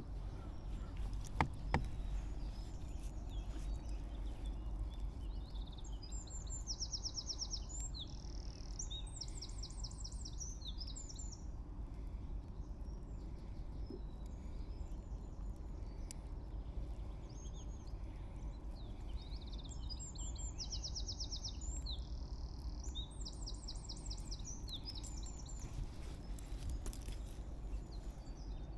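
A songbird singing two bouts of high, rapid trilled song about a quarter of a minute apart, over a steady low background rumble. Two sharp clicks come about a second and a half in.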